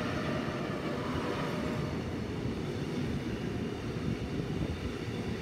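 Container freight train rolling past, its loaded flat wagons making a steady rumble of wheels on rails.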